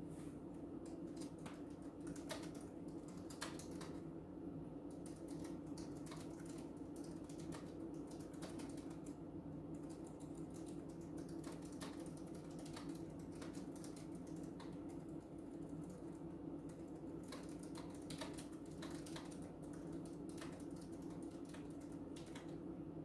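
Typing on a keyboard: a steady run of irregular light key clicks over a faint, steady low hum.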